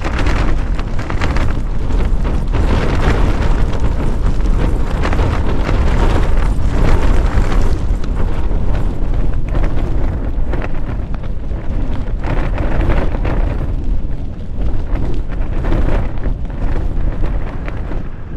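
Strong wind gusting against a Hilleberg Soulo tent, a loud heavy rumble that rises and eases in gusts as the tent takes a battering.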